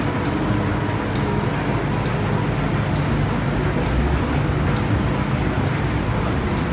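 Hong Kong MTR Tsuen Wan Line M-Train pulling away from the platform: a steady low rumble of the train's motors and wheels, building from about four seconds in as it gathers speed.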